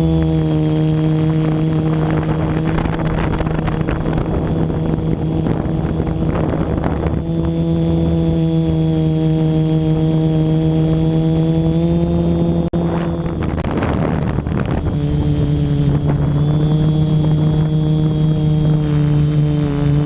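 DJI F450 quadcopter's four motors and propellers humming steadily, heard from the onboard camera, with rushes of wind on the microphone. The hum drops slightly in pitch about two-thirds of the way through.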